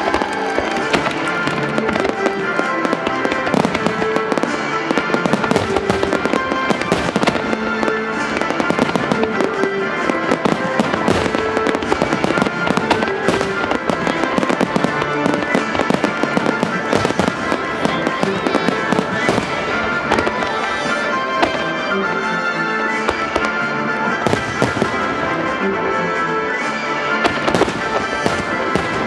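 Aerial fireworks bursting and crackling densely in quick succession, over steady accompanying music.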